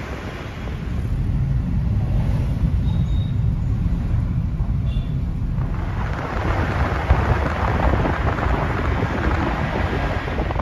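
Road rumble and wind rush inside a car driving through city traffic. About halfway through the rush grows louder and brighter.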